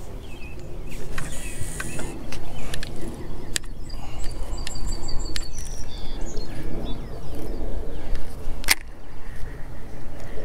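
Outdoor pond-side background with a few short bird chirps midway. About a second in there is a brief high hiss as line pays off a baitcasting reel on a cast, and a single sharp knock comes near the end.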